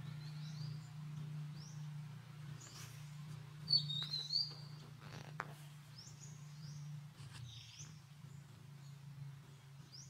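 High, short chirping calls, about one a second, with a louder cluster about four seconds in, over a steady low hum.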